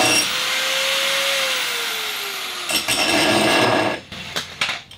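Angle grinder cutting through metal, running loud and steady, easing off with a falling whine, then biting in again until it stops about four seconds in, followed by a few sharp clicks.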